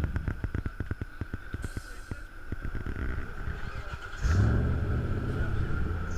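Off-road 4x4 vehicle: a run of quick sharp clicks or knocks, then about four seconds in the engine note comes in loud and low and keeps running.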